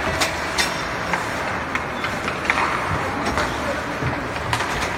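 Ice hockey play in an arena: irregular sharp clacks of sticks and puck, the loudest about halfway through, over a steady din of arena noise and voices.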